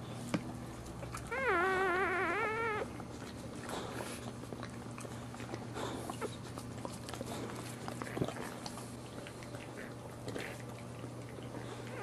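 A dog whining once, a wavering high-pitched cry lasting about a second and a half, over a low steady hum.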